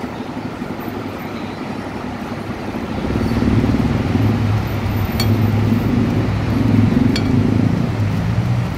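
Roadside traffic noise. A vehicle engine's low hum grows louder about three seconds in and holds, with two brief sharp clicks over it.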